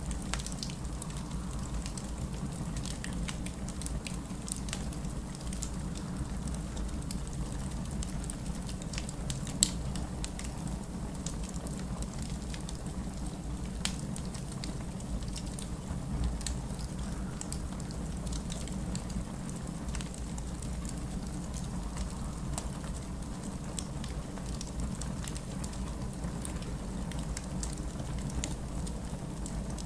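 Wood fire crackling in a fireplace: scattered small pops over a steady low rumble, with one sharper pop about ten seconds in.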